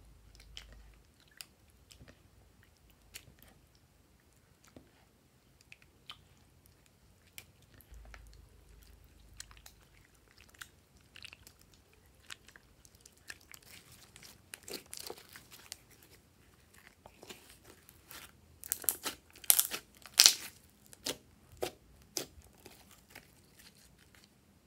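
Hands squishing and kneading glossy slime in a glass dish: scattered wet clicks and pops, densest and loudest about three-quarters of the way in.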